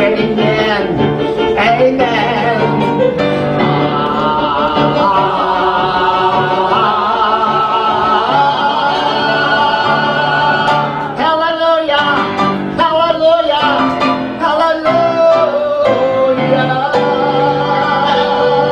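A man singing a cabaret show tune into a microphone with piano accompaniment, holding long notes with vibrato.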